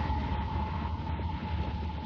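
BNSF freight train rumbling as it moves away, slowly fading, with a steady high whine running under the rumble.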